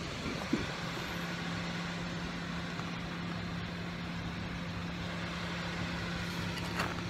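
Car engine running steadily, with a low steady hum that sets in about a second in.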